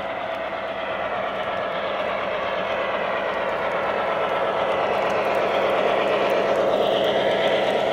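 O gauge model passenger train, a streamlined diesel locomotive and its passenger cars, rolling along the track and growing louder as it comes close.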